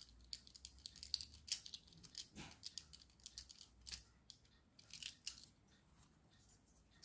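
Faint rapid clicking and scraping of a small precision screwdriver turning a tiny screw through a circuit board into a plastic back plate. The clicks come thick at first, then thin out to a few louder ones. The glued-in fixing is not holding and turns with the screw.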